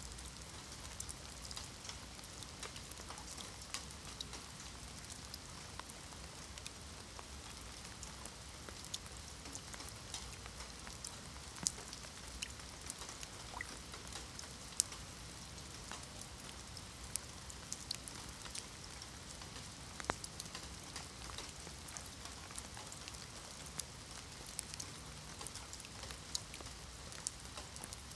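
Rain falling on wet stone paving slabs and into shallow puddles: a steady patter of drops with a few louder single splashes scattered through.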